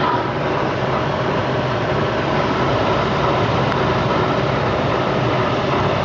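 Low-density polyethylene scrap washing and drying machine running, a steady mechanical noise with a constant hum.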